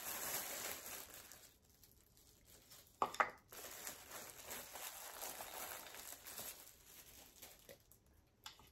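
Packaging crinkling and rustling as it is handled, in two stretches with a pause between, and a brief squeak about three seconds in.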